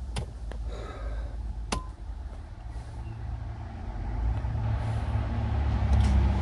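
A few sharp clicks from the ignition and dash, then a low rumble that grows louder from about four seconds in: the Mercedes Sprinter van's starter cranking slowly on a flat battery, the engine not catching.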